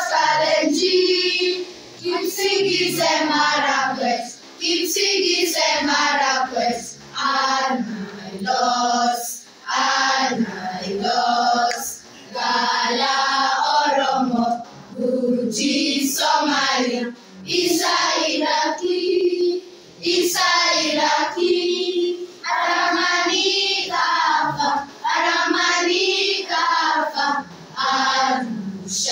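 A group of children singing together in short phrases with brief pauses between them.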